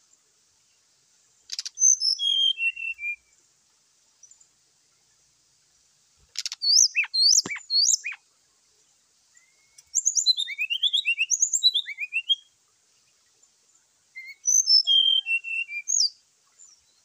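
Brown-chested jungle flycatcher singing its fighting song: four phrases of quick, high whistled notes, each run stepping down in pitch, with pauses of a second or two between them. A few sharp clicks sound in the second phrase.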